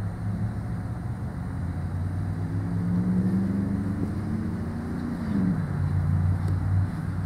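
A motor vehicle's engine running as a steady low hum, its pitch climbing for a few seconds and then dropping about five seconds in.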